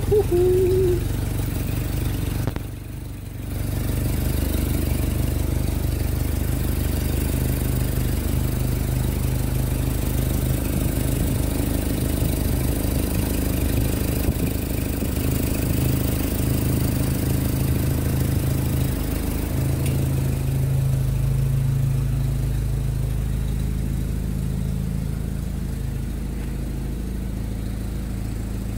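A WWII-type Jeep's four-cylinder flathead engine idling steadily, running on a freshly rebuilt fuel pump and carburettor. There is a short squeak at the very start, the sound dips briefly about three seconds in, and the idle note shifts slightly lower about twenty seconds in.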